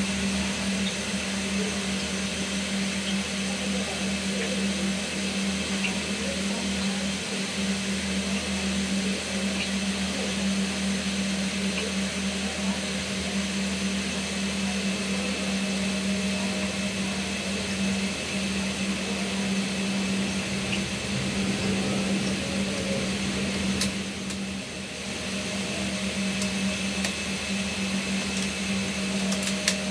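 Steady electrical hum with hiss from a National four-head VHS VCR playing back a tape, together with the TV it feeds. The sound dips briefly about three-quarters of the way through, and a sharp click comes at the very end.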